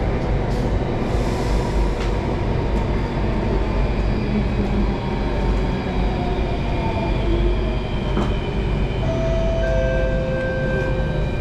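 Singapore MRT train running between stations, heard from aboard: a steady, loud rumble of wheels and running gear with a faint gliding motor whine, and short high squealing tones near the end.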